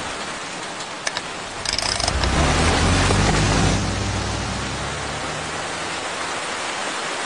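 Heavy rain pouring steadily, with a single thump about a second in. From about two seconds in, a car engine rises as the car pulls away, and its low rumble carries on under the rain.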